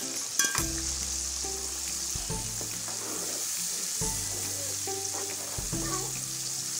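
Meat and freshly added ground tomato sizzling in hot ghee in a wok while a perforated steel spoon stirs it, with a few sharp metal clinks near the start.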